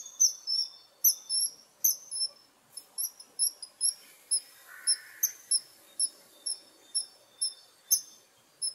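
Common kingfisher calling: a string of short, shrill, very high-pitched calls, each a quick double note, repeated about twice a second.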